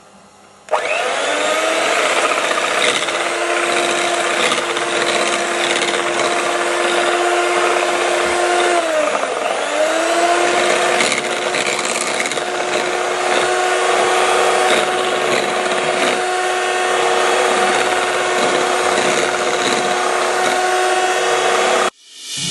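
Electric kitchen mixer whipping cream: the motor starts about a second in, winding up to a steady whine, slows briefly and picks up again about nine seconds in, and cuts off suddenly near the end.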